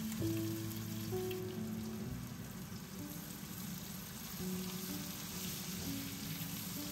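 Food sizzling and crackling as it fries in oil in a pan, over soft background music with held notes.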